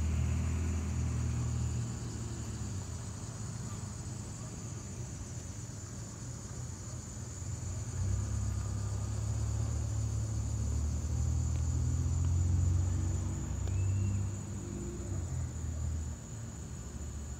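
Low outdoor rumble, swelling about eight seconds in and easing off near the end, over a steady high-pitched drone of insects.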